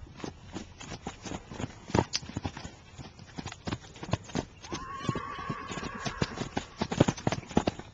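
Hoofbeats of two draft colts, a Gypsy Vanner and a drum horse, trotting and cantering on arena sand in an uneven patter of thuds. From about five to seven seconds in, one of the horses gives a long, high-pitched call.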